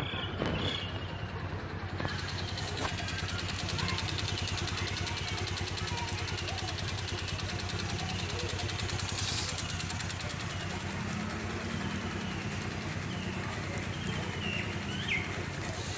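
A small engine running steadily under a constant hiss.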